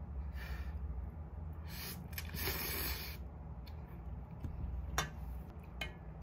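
Ramyeon noodles slurped in a few noisy bursts, the longest lasting about a second, then a utensil clicking sharply against the stainless-steel pot twice near the end as a spoonful of broth is scooped.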